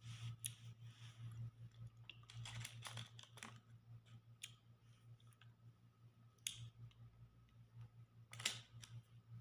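A person chewing food quietly, with scattered small clicks and crackles, the sharpest about six and a half and eight and a half seconds in, over a low steady hum.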